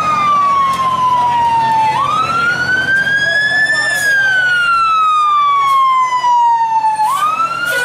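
Fire engine siren wailing, its pitch falling slowly over about three seconds and then sweeping quickly back up, twice.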